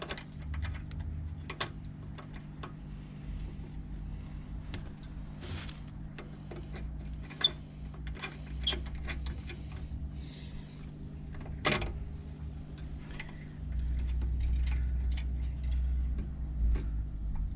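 Scattered metallic clicks and taps of hand tools and small hardware as bolts are worked on a motorcycle's indicator brackets, with a sharper knock about twelve seconds in, over a steady low hum.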